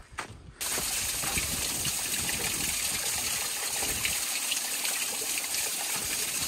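A thin stream of water falling a short drop from between boulders onto stones below, a steady splashing trickle. It starts suddenly about half a second in.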